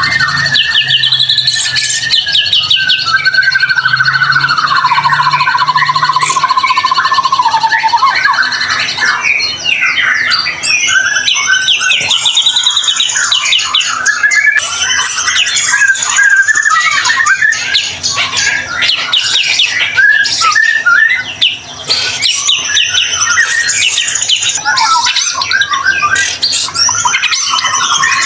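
White-rumped shama singing without pause: a loud, varied song of long whistles, fast trills and harsh rattling notes, becoming denser and more rapid after the first few seconds.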